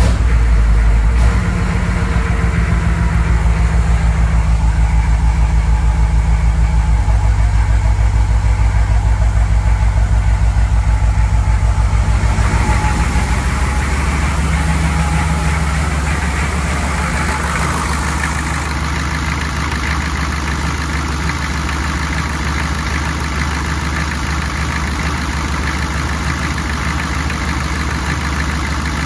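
1995 GMC 3500 HD's 6.5L diesel V8 idling steadily just after a cold start, with an even pulse. It is heard from the cab at first, then from the open engine bay from about 13 seconds in. At this stage the idle is smooth, with none of the loping that shows up once the engine is warm.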